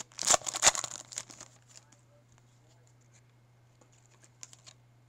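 Foil wrapper of a Topps Chrome baseball card pack crinkling and tearing open for about the first second and a half, then a few faint clicks as the cards are handled, over a steady low hum.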